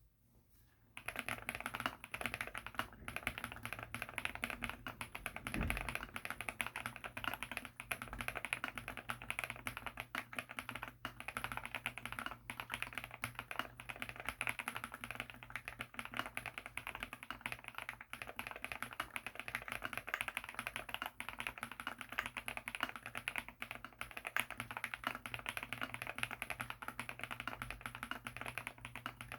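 Fast, continuous typing on a mechanical keyboard fitted with Gateron Deepping linear switches (nylon top and bottom housings, POM stem, factory-lubed), a dense stream of keystroke clacks starting about a second in.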